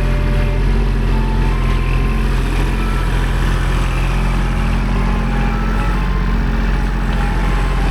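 Kubota L2501 compact tractor's three-cylinder diesel engine running steadily.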